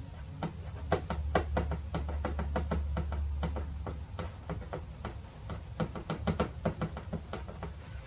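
Soft pastel stick jabbed again and again against paper on an easel board, dabbing in broken tree tops. The taps are quick and irregular, about three a second, starting about half a second in and stopping near the end.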